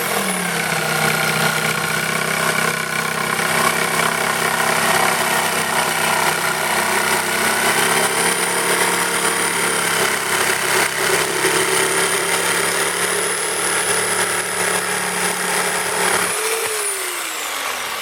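Jigsaw with a Screwfix 10 TPI wood blade sawing steadily through an oak floorboard, the motor held down in pitch under load. The blade is blunted from cutting nails, so the cut is slow. About sixteen seconds in the blade breaks through, the motor briefly speeds up, and it is then switched off and winds down.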